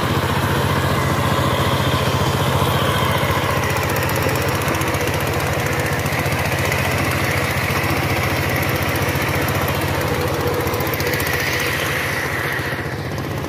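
Two-wheel power tiller's single-cylinder diesel engine running steadily with a fast, even chugging as it pulls its cage wheels through paddy-field mud. It eases off slightly near the end.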